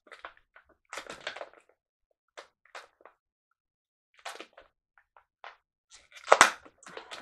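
Long latex modelling balloon rubbing and squeaking under the fingers as it is twisted into a leg, in short irregular scrapes with gaps between, the loudest near the end.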